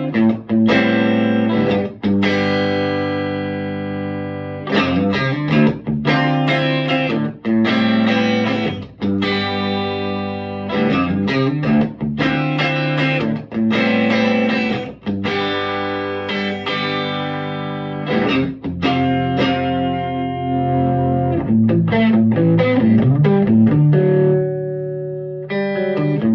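Electric guitar played through a Vintage Sound Amp, with chords strummed and left to ring and quicker strums in places, in a lightly overdriven tone.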